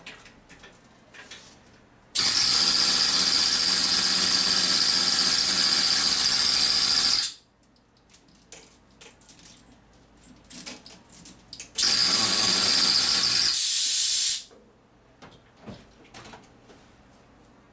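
Air-powered chain hoist running as it lowers a motorcycle. It gives two loud bursts of hissing exhaust air with a high whine, one of about five seconds starting about two seconds in and a shorter one of about two and a half seconds about twelve seconds in.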